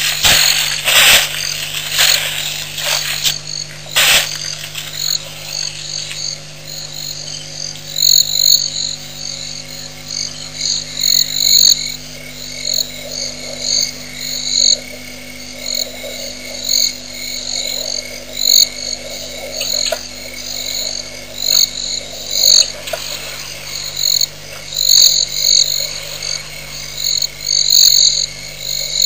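Frogs calling at a waterhole: short, high-pitched chirping calls repeating one after another, over a steady low hum. A few loud bursts of noise in the first four seconds.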